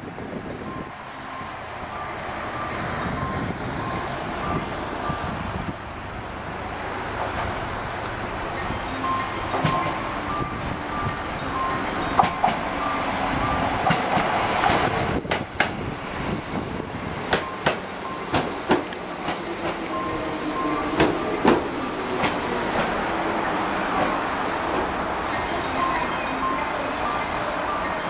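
Electric train running along the track, growing louder, its wheels clacking sharply over rail joints many times in the middle stretch. A level-crossing bell rings faintly in two alternating tones at times.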